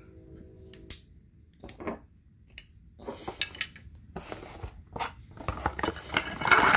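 Scattered metal clicks and clinks from a butterfly knife with skeletonised metal handles being handled, followed by rubbing and rustling as its cardboard box is handled, loudest near the end.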